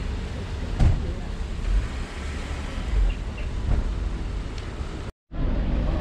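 Town street traffic: cars running past on the road, with two short knocks about a second and three seconds in. The sound drops out briefly about five seconds in, then the street noise resumes.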